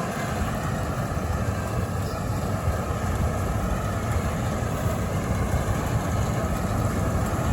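Heavy farm machinery engine running steadily, a dense, even low rumble.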